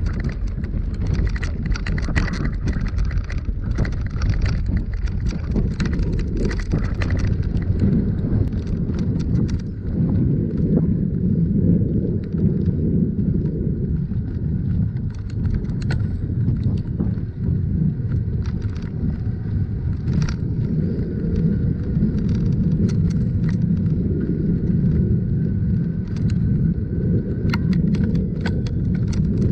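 Bicycle riding, with a steady low rumble of tyres and wind on the microphone. For about the first eight seconds the wheels cross a wooden plank bridge and clack and rattle over the boards; after that only the smooth rumble on the paved path is left.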